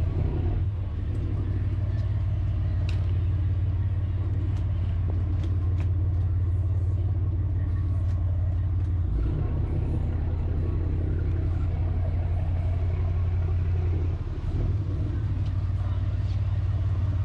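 Boat engine running with a steady low drone, with a few light clicks and knocks from work on deck.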